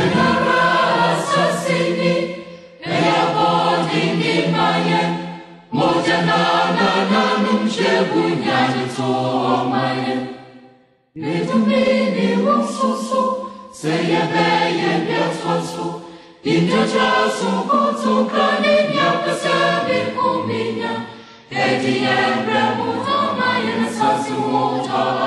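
A choir singing, in a series of phrases a few seconds long separated by brief pauses.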